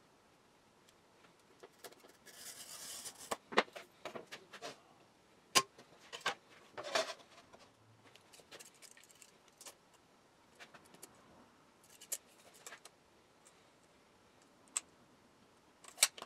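Scattered light clicks and taps of hand tools, a steel rule, a marker and a tape measure, being handled and set down on a workbench, with a short scratchy scrape about two to three seconds in.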